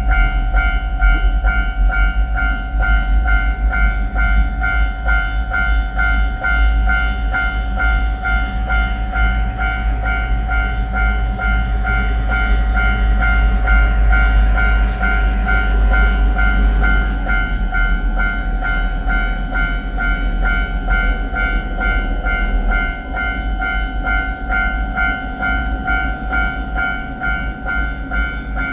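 Japanese railway level-crossing warning bell ringing steadily in a repeating two-tone pattern, over a low rumble that eases a little past two thirds of the way through.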